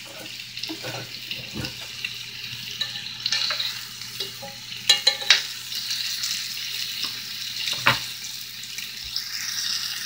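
Pork cubes sizzling in a cast-iron skillet with a steady frying hiss. There are two sharp clinks of a metal utensil against the pan about halfway through, and another near the end.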